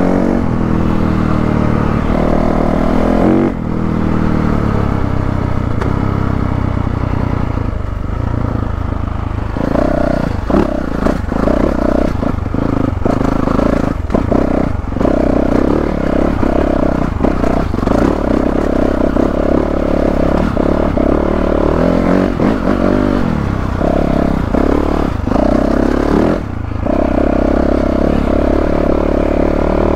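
2022 Yamaha YZ450F's 450 cc four-stroke single-cylinder engine under way off-road. It revs up through the first few seconds, then rises and falls over and over as the throttle is rolled on and off, with clatter as the bike rides over rough, rocky ground.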